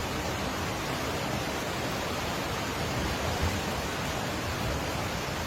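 Steady rushing noise of heavy rain and fast-moving floodwater.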